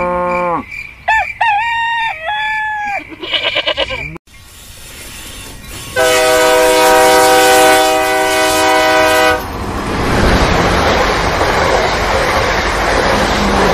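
Farm-animal calls: the tail of a moo, then a rooster-like crow and quick clucking. After a short break, a toy train's horn sounds for about three seconds, followed by a steady running rumble.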